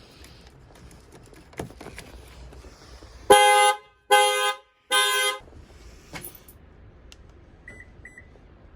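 The Lexus NX300h's anti-theft alarm sounds its horn in three short honks, set off when power reaches the car through the jumper point from a backup battery. A few faint clicks come before the honks, and two faint short beeps follow near the end.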